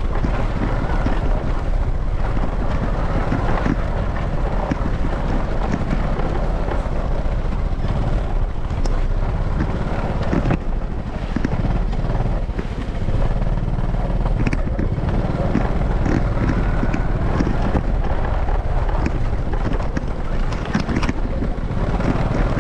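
Small motorbike engine running steadily as it rides along a rough grass track, with wind on the microphone and a few sharp knocks from the bumpy ground.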